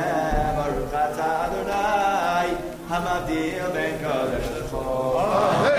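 A group of people singing a Havdalah melody together in Hebrew, unaccompanied, growing a little louder near the end.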